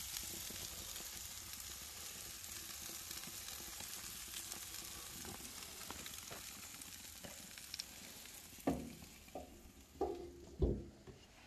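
Cheeseburger patties sizzling on a gas grill, a steady frying hiss that slowly fades. Near the end come a few knocks and thumps as the Weber grill's lid is closed.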